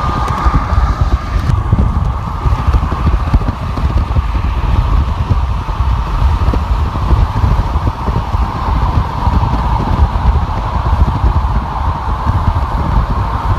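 Car driving at freeway speed: a steady, deep road rumble with tyre and wind noise and a constant whine.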